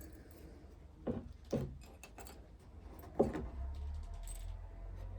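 Small clicks and scrapes of the cap on a bottle of Ditrim antibiotic being pried open with a knife. There are three sharper clicks: about a second in, half a second later, and just after three seconds.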